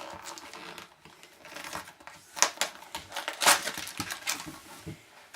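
Plastic wrapping and card-pack wrappers crinkling and rustling as a sealed hockey card box is opened and emptied by hand, in irregular sharp crackles, the loudest about two and a half and three and a half seconds in.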